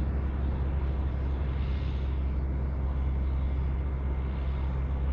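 Steady low drone of a passing motor boat's engine, with no change through the stretch.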